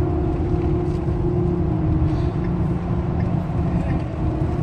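Pickup truck driving at road speed, heard from inside the cab: a steady low rumble of engine and tyres with a constant hum over it.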